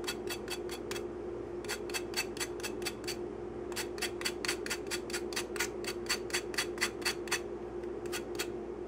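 Lemon peel being grated on a small metal box grater: quick rasping strokes, about five a second, in runs broken by short pauses, over a steady low hum.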